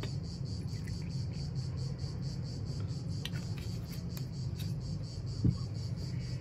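Steady, high, evenly pulsing chirring of insects over a low steady hum, with a few faint clicks and one short dull thump about five and a half seconds in.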